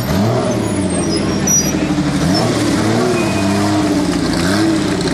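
Historic Porsche 911 rally car's air-cooled flat-six engine, revs rising and falling about four times as the car pulls away at low speed.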